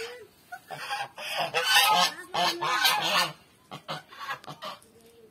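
Domestic geese honking: a run of loud, harsh calls in a cluster from about one to three seconds in, with fainter calls before and after.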